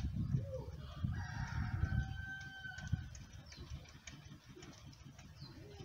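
A rooster crowing once, a single held call starting about a second in and lasting under two seconds. Under it, low rubbing and bumping from a cloth being wiped along a car's door window frame.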